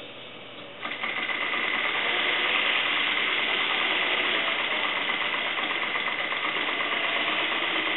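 Small PMR #3 model steam engine running on compressed air at about 10 psi. It starts up about a second in, then runs steadily with a fast, even beat and a steady high tone.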